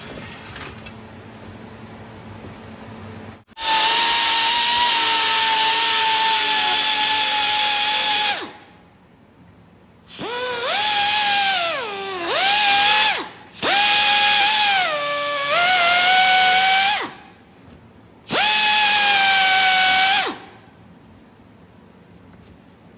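Small electric grinder whining in four bursts as it grinds along the crack in a plastic car bumper: a long first run starting about three and a half seconds in, then three shorter ones. Its pitch sags several times in the middle bursts as the disc bites into the plastic. The grinding prepares the crack for plastic welding.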